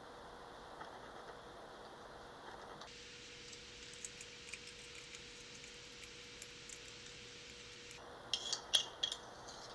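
Light clicks and clinks of a glass beaker being handled as potassium alum crystals are knocked out of it onto a paper towel, sparse at first, then a quick cluster of louder clinks near the end.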